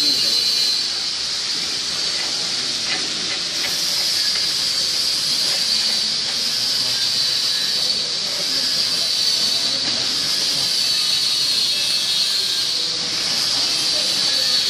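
Steady high-pitched hiss of factory background noise, with a few faint taps about three seconds in.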